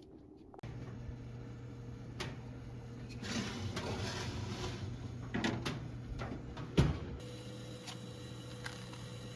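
Kitchen handling noises: rustling and light clatter with a few clicks and one sharp knock about seven seconds in, over a steady low hum that starts about half a second in.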